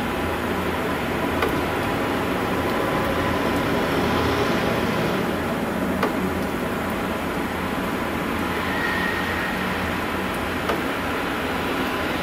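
A steady, low, droning rumble with faint held tones running under it: the unexplained 'strange sound' heard over Arkhangelsk in March 2012, whose source was never found. A brief higher tone sounds about nine seconds in.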